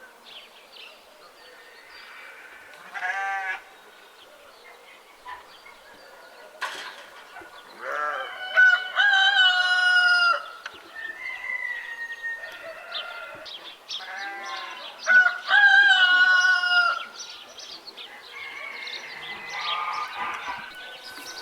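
A rooster crowing, two long crows about 8 and 15 seconds in, with shorter fowl calls between them.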